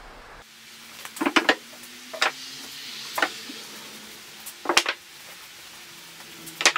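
Sharp clinks and knocks of hard objects being handled, coming in small clusters about a second apart, with a faint steady hum underneath.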